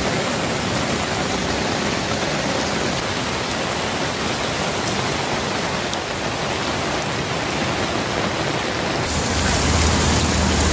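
Heavy rain falling steadily on floodwater, a continuous hiss; about nine seconds in it turns louder, with a deeper rumble underneath.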